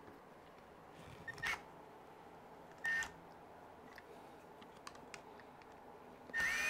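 Cordless electric screwdriver blipped briefly twice, then running with a whine that rises and falls near the end as it backs out a stuck screw on an RC truck's chassis brace.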